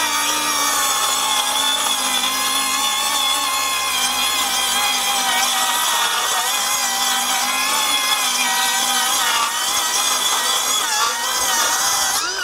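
Milwaukee M18 FUEL 6-1/2-inch brushless cordless circular saw cutting under load through two stacked half-inch OSB sheets in one long bevel cut. The motor and blade run steadily, their pitch wavering slightly as the saw is pushed along the board.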